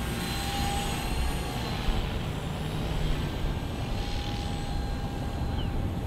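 E-Razor 450 RC helicopter in flight: its motor and spinning rotors make a steady whine with a rushing, noisy undertone.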